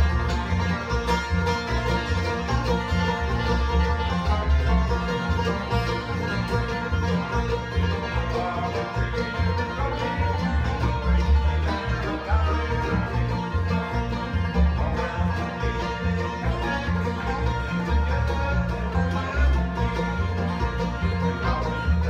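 Bluegrass string band playing an instrumental passage: banjo picking over acoustic guitar and mandolin, with an upright bass plucking changing low notes underneath.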